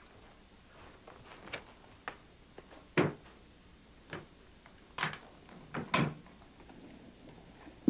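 A briefcase being handled and opened on a wooden table: a string of separate knocks and clicks, the loudest two thumps about three and six seconds in.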